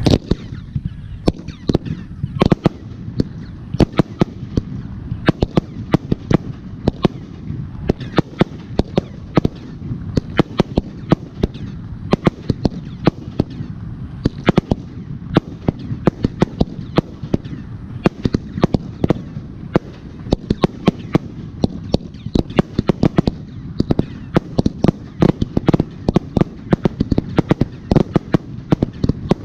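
Fireworks display: a dense, irregular volley of sharp bangs and pops from bursting aerial shells, several a second, over a steady low rumble.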